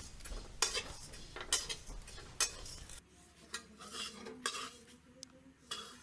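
Metal spatula scraping and stirring flattened rice (chuda) as it roasts in a steel kadai, in repeated short scrapes against the pan's metal.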